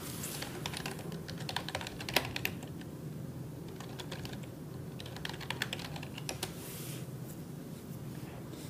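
Typing on a computer keyboard: two runs of quick keystrokes, the first about half a second in and the second from about four seconds to past six, over a faint steady low hum.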